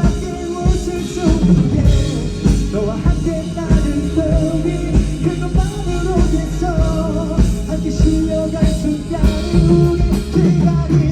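Live band playing a pop-rock song: drum kit keeping a steady beat under bass, guitar and a wavering melody line.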